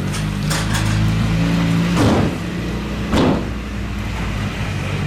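A vehicle engine running steadily at a low pitch, with a few short noisy knocks or rustles, the two strongest about two and three seconds in.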